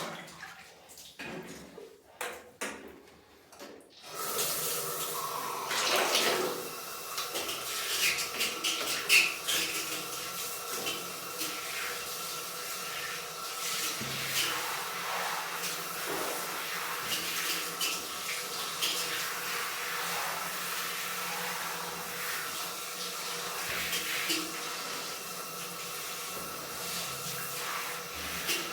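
Running water from a tap, switched on about four seconds in and then pouring steadily, with a few knocks and splashes along the way.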